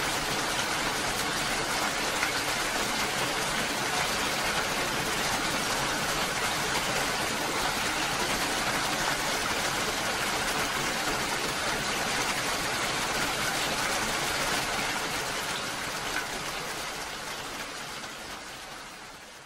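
Steady rain, an even hiss with no music over it, fading out over the last few seconds.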